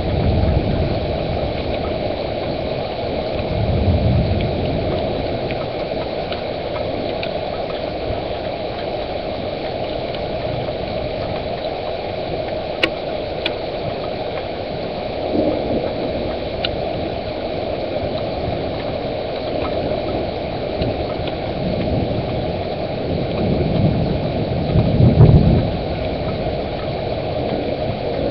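Thunderstorm noise: a steady low rushing, with deeper rumbling swells about 4 s in, again near 15 s, and building to the loudest one around 25 s.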